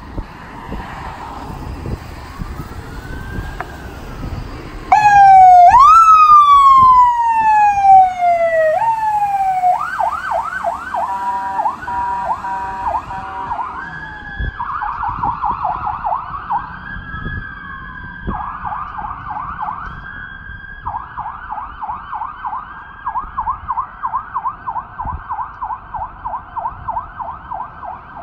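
Ambulance electronic siren, faint at first, then cutting in loud with a slow wail before switching to a fast yelp. It grows weaker as the ambulance moves off.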